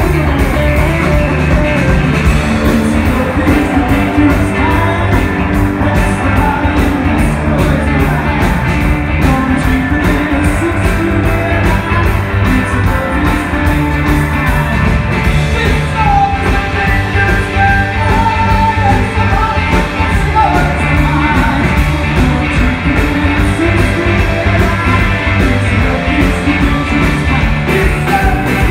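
Live rock band playing at full volume: two electric guitars, electric bass and drum kit keeping a steady beat, with a man singing lead vocals.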